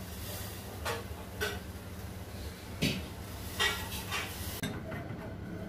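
A handful of sharp clinks and knocks of steel dishes and utensils being handled, over a steady low hum.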